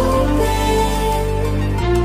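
Background music: sustained chords over a deep bass, the chord changing near the end.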